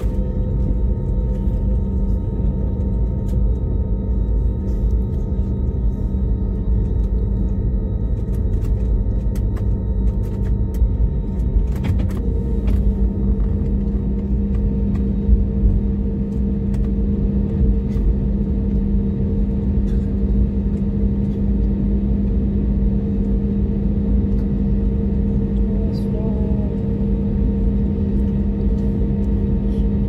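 Cabin noise of an Airbus A321neo taxiing, heard from a window seat: a steady low rumble with an engine hum that grows a little stronger about twelve seconds in, and occasional light clicks.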